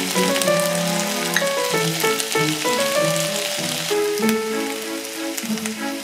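Chopped vegetables sizzling and crackling in hot oil in a frying pan, easing off about four seconds in, over background piano music.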